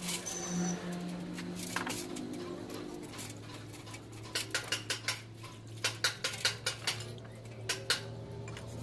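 Steel cylinder liner clinking and scraping against a metal pan as it is washed by hand in oily liquid. There is a quick run of sharp clinks about four seconds in and another near the end, over a steady low hum.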